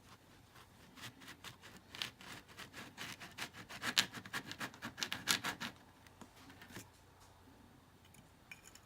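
Rapid scratchy strokes of a small 3D-printed plastic piece being ground down by hand, busiest in the middle and dying away about seven seconds in, with a few faint ticks near the end.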